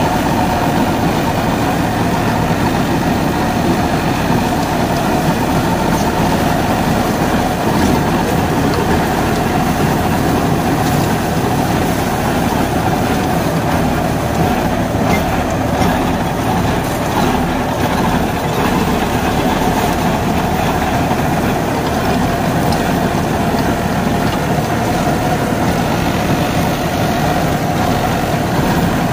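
Deutz-Fahr Agrolux 80 tractor's diesel engine running steadily under load, driving a Shaktiman Tusker rotavator that churns soil and chopped banana stalks.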